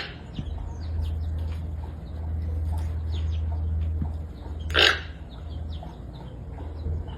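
A hornbill gives one loud, harsh call about five seconds in, over many faint high chirps from small birds and a low steady rumble.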